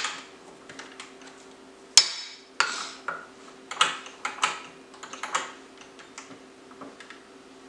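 Clicks and clacks of a Ryobi One+ circular saw being handled while its blade lock is held and the blade bolt is tightened: one sharp click about two seconds in, then a scatter of smaller clacks, over a faint steady hum.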